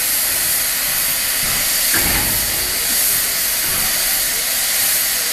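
Steam locomotive letting off steam: a steady, loud hiss with no exhaust beat.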